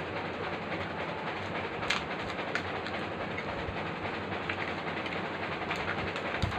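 A steady rumbling hiss throughout, with a few sharp clicks from a steel spoon scooping filling out of a steel tin and pressing it into a puri shell.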